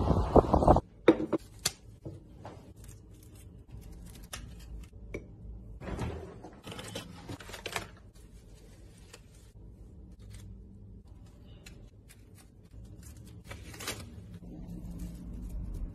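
Scattered small clicks, taps and rustles of objects being handled close to the microphone, after a brief gust of wind-like noise in the first second.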